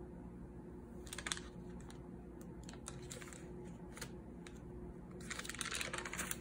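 Spiral-notebook paper handled by hand: a few short rustles and taps, then a longer papery swish near the end as a page is flipped over. A faint steady hum runs underneath.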